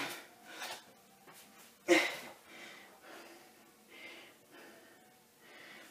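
A man's sharp breaths out with effort during a floor exercise, a few short puffs spaced a second or two apart, the loudest about two seconds in.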